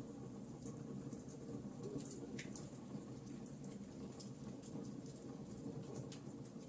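Wood fire burning in a fireplace: irregular small crackles and pops over a low steady rumble of the flames, with one sharper pop about two and a half seconds in.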